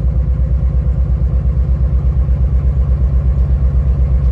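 2006 Nissan 350Z's V6 engine idling with a steady, rhythmic pulse. The engine is misfiring, with cylinders 4, 5 and 6 not contributing, traced to an unplugged ignition coil on cylinder 5 and swapped coil connectors on cylinders 4 and 6.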